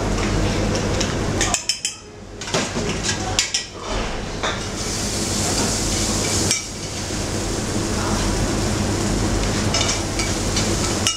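A metal spoon clinking and scraping against stainless saucepans and a frying pan, a run of sharp clinks in the first few seconds, over a steady kitchen background with a low hum.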